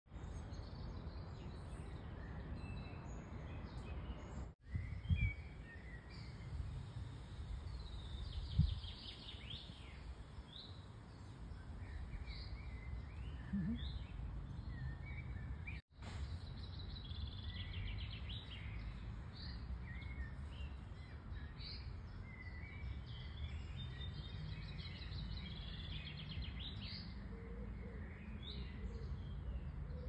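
Several small birds chirping and singing on and off, over a steady low outdoor rumble. There are two brief low thumps early on, and the sound drops out for a moment twice.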